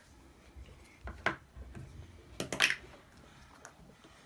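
Plastic Play-Doh toy pieces clicking and knocking on a tabletop as they are handled: one sharp click about a second in and a quick cluster of clicks around two and a half seconds.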